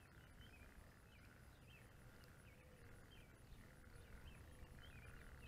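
Near silence: faint outdoor ambience, with faint chirps repeating about twice a second over a low rumble.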